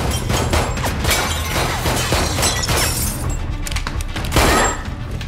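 Film music with repeated crashes and breaking glass, and one heavy crash about four and a half seconds in, the loudest sound.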